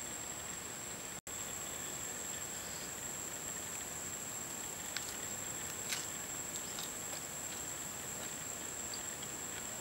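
Steady high-pitched drone of forest insects, with a few faint clicks. The sound cuts out for an instant about a second in.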